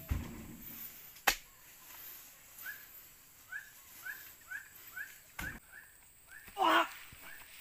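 Animal calls: short rising chirps repeated about twice a second, with one louder cry falling in pitch near the end. A few sharp knocks come in between.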